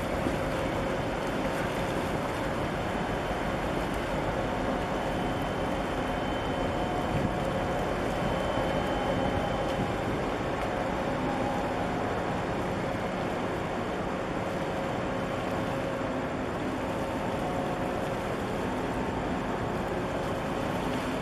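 Steady drone of a large container ship passing close, its machinery giving a faint even hum, under a broad hiss of wind and water.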